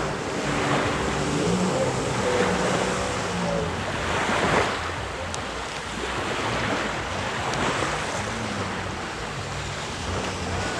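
Jet ski engine running over rushing, splashing water, with its pitch shifting during the first few seconds. A louder surge of spray comes about four and a half seconds in.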